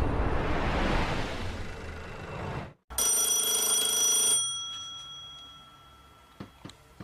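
A loud swell of music fades and cuts off abruptly near three seconds in. A telephone bell then rings for about a second and a half, stops suddenly and dies away, and starts ringing again right at the end.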